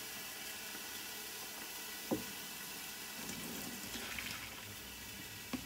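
Steady kitchen hiss, with a single sharp click about two seconds in.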